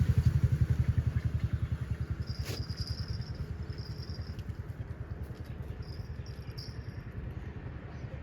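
A small engine running with an even low throb that starts suddenly and slowly fades away.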